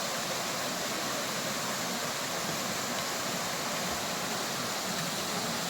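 Steady rush of a tall waterfall, the water falling continuously.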